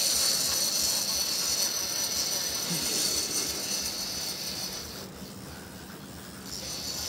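Big-game fishing reel's drag buzzing steadily as line is pulled off by a hooked fish, most likely a yellowfin tuna. It stops about five seconds in and starts again a second and a half later.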